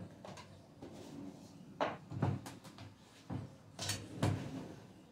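A few short knocks and clicks of coffee thermos flasks being handled and set down on a kitchen counter.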